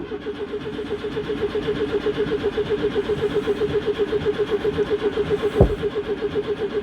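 Citroen GSA's air-cooled flat-four being turned over on the starter in an even rhythmic chug of about eight beats a second without catching. It is struggling to draw fuel after standing, and a single sharp bang comes about five and a half seconds in.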